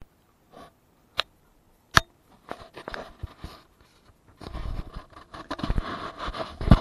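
Handling noise on a handheld camera: two sharp clicks, then rustling and scuffing that grows louder about halfway through, with low rubbing thuds, as the holder walks over granite slabs and loose rock.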